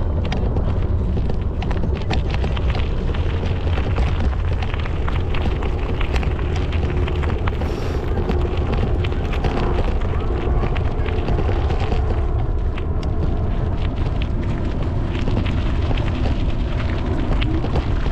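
Wind buffeting the microphone: a steady, loud low rumble with frequent crackles.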